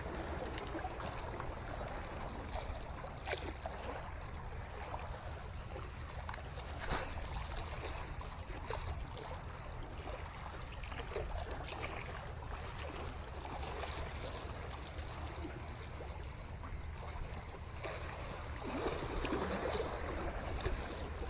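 Sea water lapping and sloshing against a breakwater's rocks and concrete blocks, a steady wash with a couple of faint clicks.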